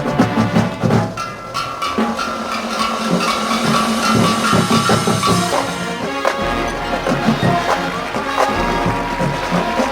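Marching band playing: percussion hits, then brass and winds holding long sustained chords from about a second and a half in.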